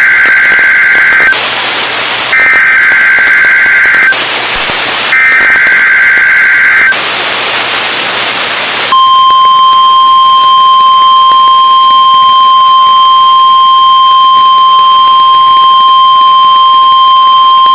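NOAA Weather Radio Emergency Alert System weekly-test signal: three screechy SAME digital header bursts, each under two seconds, with radio hiss between them. Then, about nine seconds in, the steady 1050 Hz warning alarm tone that switches on weather-alert receivers.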